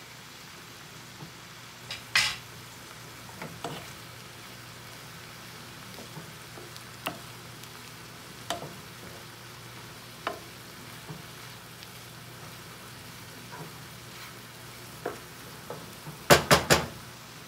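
Mushrooms, broccoli, spinach and bacon sizzling steadily in a frying pan while a wooden spoon stirs them, with scattered taps and scrapes of the spoon on the pan. A louder knock comes about two seconds in, and a quick run of three loud knocks near the end.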